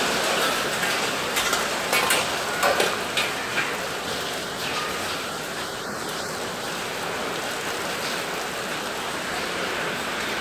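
Heavy rain mixed with small hail pouring down steadily in a dense hiss. A few sharp taps stand out in the first few seconds.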